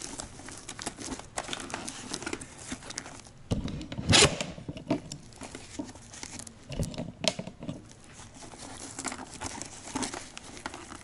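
Rustling, scraping and crinkling of hands working inside a snowmobile helmet's cloth liner and padding while tucking a microphone in behind the cheek pad, with a louder knock about four seconds in and another near seven seconds.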